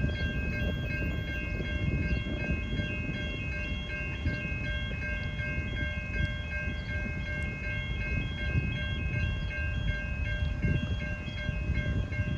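Distant V/Line train rumbling as it runs into the station. Over it, an electronic level-crossing bell rings in a high, even pulse about twice a second.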